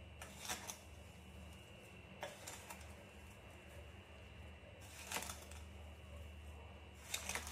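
A steel spoon stirring lemon pieces with sugar, salt and chilli powder in a stainless steel bowl: about four short clinks and scrapes of spoon against the bowl, over a faint steady hum.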